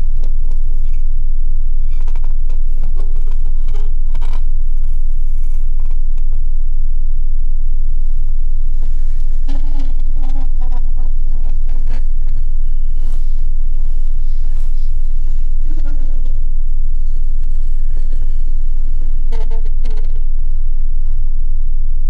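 Loud, steady low rumbling drone of a horror film's sound design, with faint scattered tones and a few clicks over it.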